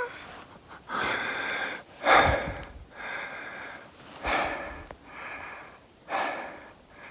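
A man breathing close to the microphone: about three slow, even breaths in and out, each a soft rushing hiss, some sharper at the start.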